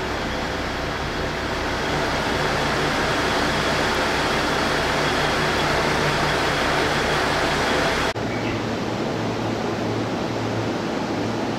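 Stationary E233 series electric train's onboard equipment (air conditioning and auxiliary power) running with a steady hiss and low hum. About eight seconds in the sound cuts abruptly to a lighter steady hum and hiss, with the deepest hum gone.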